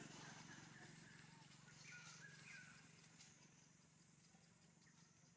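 Near silence: faint outdoor background with a low steady hum and a few faint short chirps about two seconds in.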